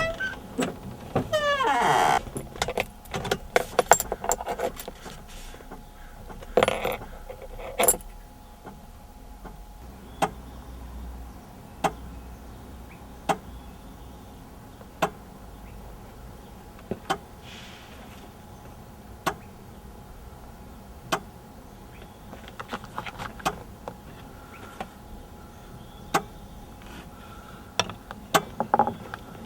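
Keys jangling with a brief squeak near the start, then a run of single sharp clicks, about one every two seconds.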